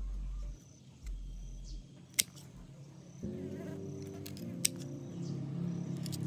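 Handling noises: a few low thuds, then two sharp clicks a couple of seconds apart, the first the loudest sound. Soft background music comes in about three seconds in and continues.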